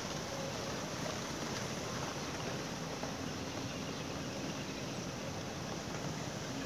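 Steady outdoor rushing noise, with no clear bird calls standing out.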